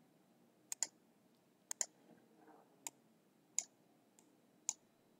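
Faint computer mouse clicks: two quick double clicks about a second apart, then three single clicks spaced about a second apart.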